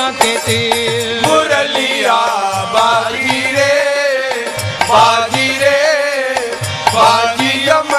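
Hindi devotional bhajan music between sung lines: a wavering melodic line over a steady hand-drum beat.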